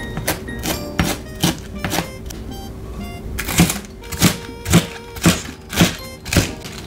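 Chef's knife chopping napa cabbage on a plastic cutting board, with steady strokes about two a second and a pause a little after two seconds in.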